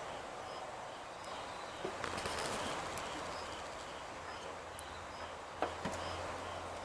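Outdoor background noise: a steady hiss with a faint high chirp repeating about every 0.7 seconds. A low hum comes in about two seconds in, and a sharp click sounds late on.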